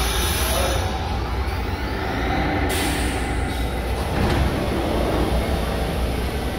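A New York City subway train rumbles as it comes to a stop at the platform. About two and a half seconds in there is a sudden hiss of air from the brakes, and the doors slide open shortly after.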